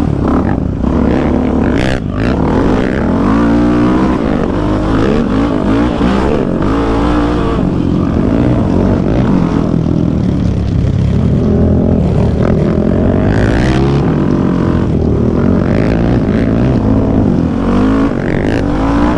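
Yamaha Raptor 700 ATV's single-cylinder engine, fitted with a full aftermarket exhaust, revving up and falling back again and again as the throttle is worked on a trail ride.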